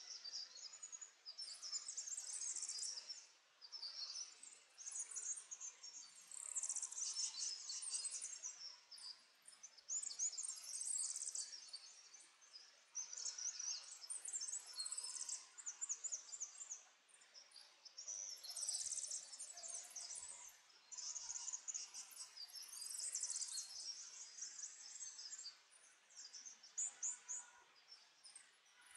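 Natural forest ambience: high, rapid chirring phrases a second or two long, one after another with short gaps.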